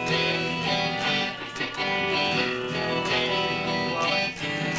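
Electric guitar being played through an amp, strumming chords and picking notes that ring together and change every second or so, as the band warms up.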